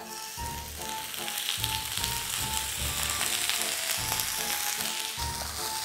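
Plant-based beef patty sizzling steadily as it fries in plenty of oil in a nonstick pan, with faint background music under it.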